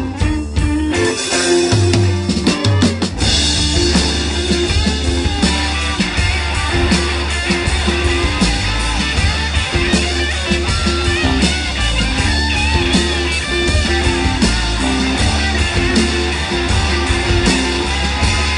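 Live rock band playing with electric guitars, bass and drum kit, without vocals. The low end is sparse and broken for the first few seconds, then the full band settles into a steady groove about three seconds in.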